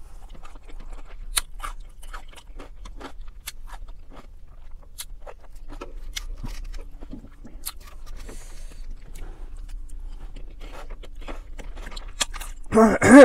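Close-up chewing of pasta, shrimp and lettuce: wet mouth clicks and soft crunches, with the odd clink of a metal fork on the plate. Just before the end a short, loud voiced sound from the eater.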